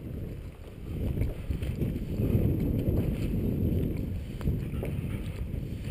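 Wind rumbling and buffeting on a head-mounted camera's microphone, with footsteps through dry grass.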